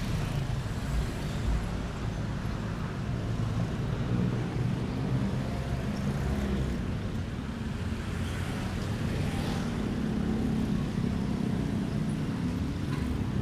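Steady road traffic: motorcycles and cars passing close by, engines running and tyres on the road.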